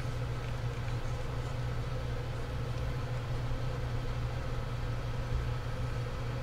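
Steady low hum of background machinery, with a few faint clicks of small parts being handled in the first few seconds.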